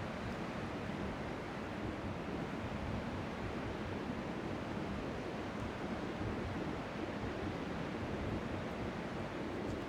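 Strong wind blowing across the microphone in a steady rush of noise, with faint waves lapping on the shore beneath it.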